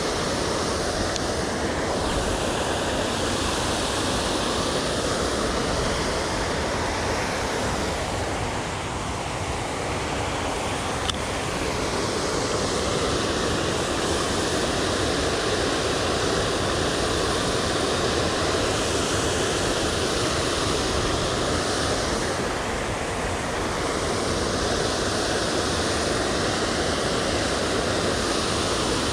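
Steady loud rushing noise, its colour slowly sweeping up and down about every ten seconds.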